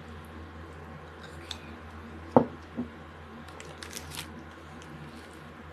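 A plastic cereal cup and spoon being handled: a sharp knock a little over two seconds in, a softer one just after, then a brief crinkling of the cup's peeled-back lid near four seconds.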